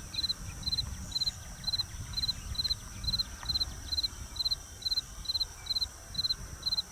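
A cricket chirping steadily, short pulsed chirps at about two a second, over a low rumble.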